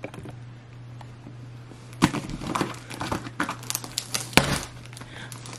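Packing tape and the cardboard of a tightly taped shipping box being torn and pulled open by hand: irregular crackling rips and sharp ticks that start about two seconds in.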